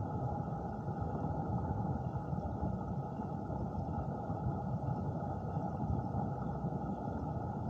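Steady, muffled rushing of stream water recorded underwater, mostly a low rumble.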